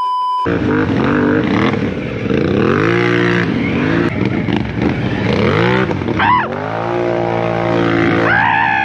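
Can-Am ATV engine revving hard under load, its pitch rising and falling again and again, with higher whining rises and falls of the revs a little after six seconds and near the end.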